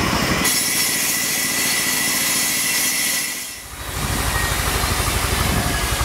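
Sawmill band saw cutting through a log: a steady high hiss and whine over a low, rhythmic engine thud. A little over three seconds in, the cutting sound drops away and only the low, pulsing engine goes on.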